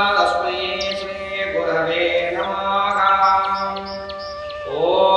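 Male voice chanting a Hindu prayer in long, held melodic phrases over a steady low drone, with a new phrase rising in near the end.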